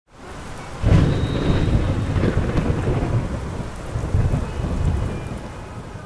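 Rumbling thunder over steady rain. The rumble swells sharply about a second in and then slowly dies away.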